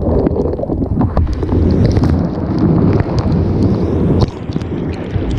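Strong storm wind buffeting a GoPro's microphone in a heavy downpour, with many sharp raindrop ticks on the camera housing. The gusting eases slightly about four seconds in.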